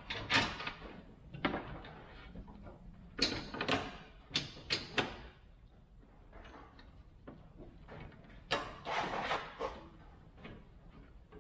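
Irregular knocks, clicks and scrapes of parts being handled and fitted by hand at the radiator and shroud of a car's engine bay, coming in several short clusters.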